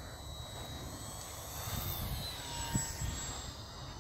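Radio-controlled Glasair Sportsman S+ model airplane flying past low. Its motor and propeller give a faint whine that rises and falls, growing louder through the middle as it passes. There is a low rumble of wind on the microphone and a brief thump.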